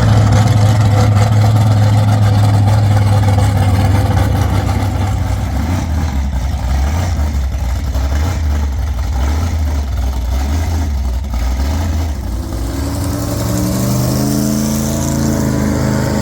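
Custom van engine idling low and unevenly, then revving up over the last few seconds, its pitch rising steadily.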